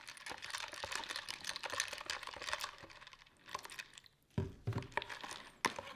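A metal spoon stirring star-shaped plastic charms and glue in a plastic tub, with rapid small clicks and scrapes against the plastic, as slime activator is poured in from a plastic bottle. The clicking thins out after about three seconds, and a soft thump comes about four and a half seconds in.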